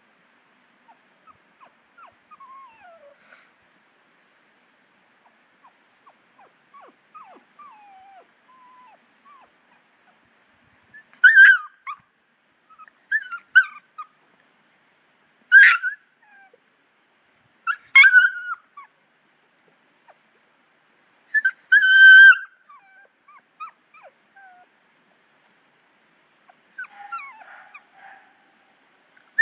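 Seven-week-old puppies whimpering and yipping as they play: faint falling whines at first, then a string of short, sharp, high yelps, one every two or three seconds, from about ten seconds in.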